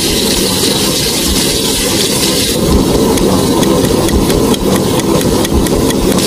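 Steady, dense grilling sizzle over a low rumble, with a run of small crackles through the middle.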